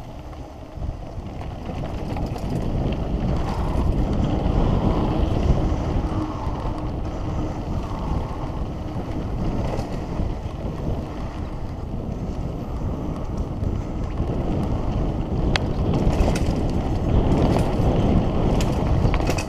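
Wind rushing over the microphone of a mountain bike descending a dirt singletrack, with a low rumble of tyres on the trail, growing louder over the first few seconds. A few sharp rattles of the bike over bumps come near the end.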